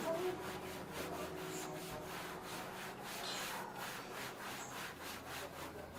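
Repeated hand rubbing strokes on a hard surface, like sanding or scrubbing, about three strokes a second.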